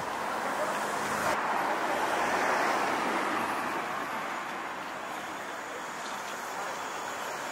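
Street traffic: a passing car's tyre noise swells over the first few seconds and then eases into a steady background of traffic.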